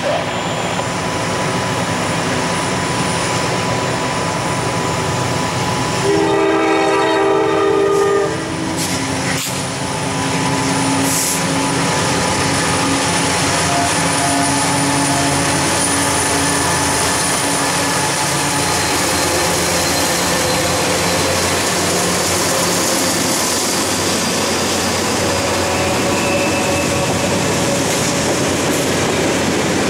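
Norfolk Southern diesel freight train approaching and passing. About six seconds in it sounds one horn blast lasting about two seconds, then the locomotives and a string of freight cars roll by with a steady rumble and wheel clatter.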